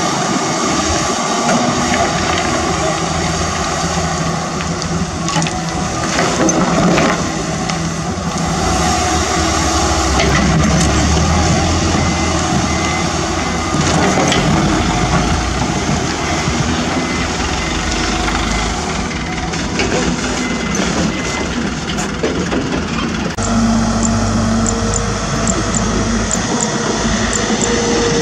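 Diesel engines of heavy earthmoving machines running: Toyota Dyna dump trucks and a CAT 320D2 hydraulic excavator at work. A reversing alarm beeps steadily for a few seconds past the middle.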